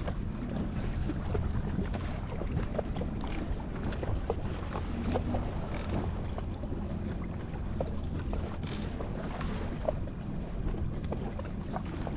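Jet ski engine running steadily at trolling pace, with small splashes of water against the hull and wind on the microphone.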